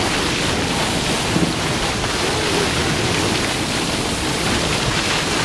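Steady rush of water from a moving boat's bow wave and hull, with wind buffeting the microphone.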